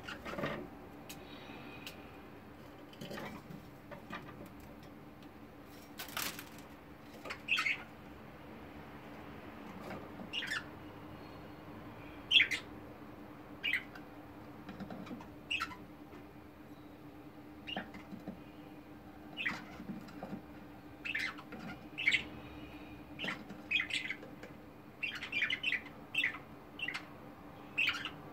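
Budgerigars chirping in short, separate calls, scattered at first and coming more often toward the end, with a brief flutter of wings about six seconds in.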